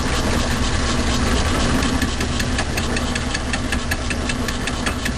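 Logan lathe running with a fly cutter in the chuck taking an interrupted cut on a workpiece clamped in the milling-attachment vise: the cutter strikes the metal once a turn, an even rapid ticking about five a second over the steady hum of the motor and drive.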